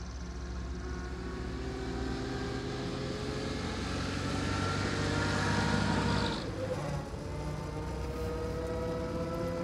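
Car engine running and slowly gaining speed, its pitch rising steadily, with a hiss that cuts off about six seconds in.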